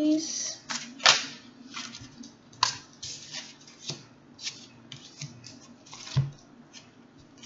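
Tarot cards being shuffled and handled: a run of irregular crisp snaps and slaps of card stock, the loudest about a second in and again about six seconds in.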